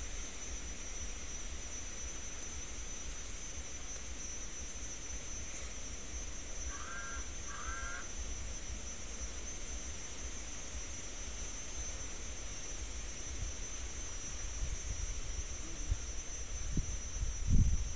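Outdoor ambience: a steady high-pitched whine over a constant low rumble. Two short bird calls come about seven and eight seconds in, and a few low thumps come near the end.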